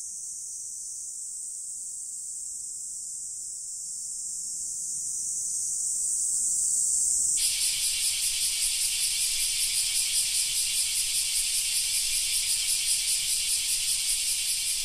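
A steady high hiss. About halfway through, a louder, wider hiss takes over, pulsing a few times a second.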